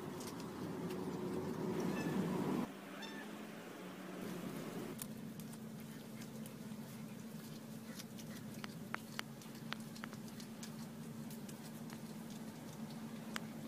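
Domestic cat growling low and steadily over its squirrel kill for about two and a half seconds, stopping abruptly. Then a scatter of sharp clicks as it chews and crunches the squirrel, over a steady low hum.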